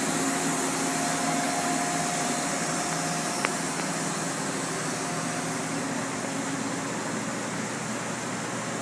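Steady whirring hum and hiss of running machinery, with a faint steady tone that fades out about halfway through and a single sharp click about three and a half seconds in.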